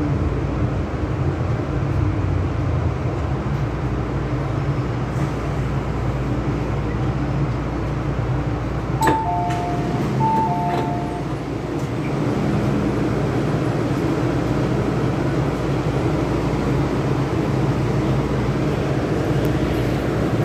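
Steady low rumble and hum of an MTR M-Train, heard from inside the passenger car. About nine seconds in, a two-note falling chime sounds twice.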